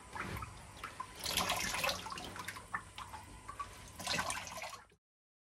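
Water splashing and trickling as hands knead and squeeze wet grated sago pith in a woven basket, washing the starch out into a tub. The sound swells twice and then cuts off abruptly near the end.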